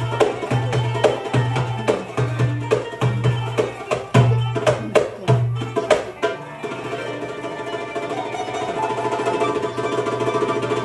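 Live Middle Eastern music: a hand drum plays a steady rhythm of deep strokes and sharp slaps with a plucked string instrument, then the drum drops out about six and a half seconds in, leaving the plucked strings playing a fast tremolo.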